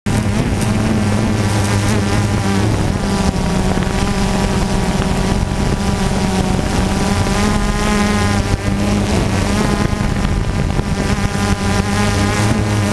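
Multirotor drone's electric motors and propellers buzzing steadily while it hovers: a constant low hum with higher tones that waver slightly in pitch as the motors adjust.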